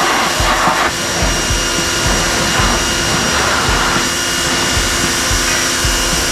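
Harbor Freight pressure washer running, its jet hissing steadily as it sprays against a greasy engine.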